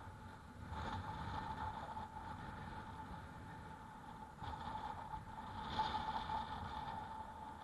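Wind and road noise from riding an e-bike, with a steady high whine throughout. The noise swells about a second in and again in the second half.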